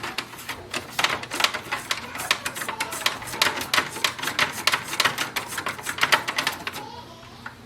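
Toothbrush scrubbing the rubber paper-feed roller of an HP DeskJet 4100-series printer: quick, rhythmic brushing strokes that stop near the end.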